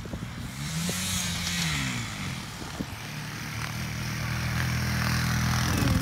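Small youth ATV engine running as it is ridden, its pitch rising and falling with the throttle and growing louder near the end.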